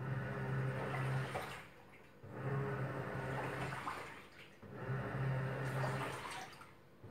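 Top-loading washing machine in its wash cycle: the motor hums and the water churns in strokes of about two seconds, stopping briefly between them, three strokes in all.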